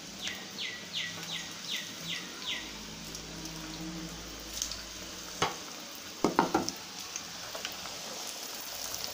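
Batter-coated sweet potato bondas deep-frying in hot oil with a steady sizzle. A run of about seven short, falling high chirps sounds in the first two and a half seconds. A sharp knock comes about five and a half seconds in, followed by a louder cluster of clatters.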